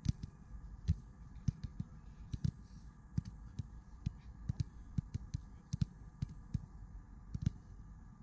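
A football being struck and touched repeatedly by feet: irregular short thuds, a couple to a few a second.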